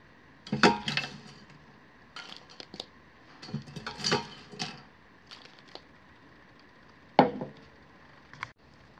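Metal tongs clinking and scraping against a stainless steel inner cooking pot as crisp fries are lifted out, in scattered short clatters with a sharper knock about seven seconds in.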